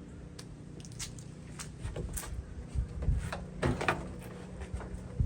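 Irregular knocks, clicks and rattles of car body parts being handled and pried as the front bumper cover of a Miata is worked loose. The loudest knocks come about two, three and four seconds in.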